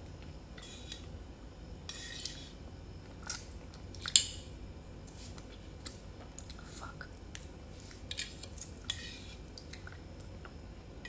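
Spoon clinking and scraping against a bowl in short, irregular clicks as soup is eaten rapidly, the sharpest click about four seconds in.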